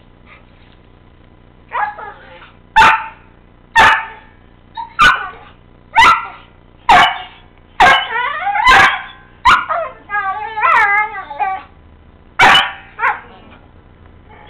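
Two dogs play-barking and yipping as they wrestle, the loud, untuneful play noise the owners call "singing". After about two quiet seconds come sharp yelping barks roughly once a second, with wavering howl-like whines in between around the middle, and two more barks near the end.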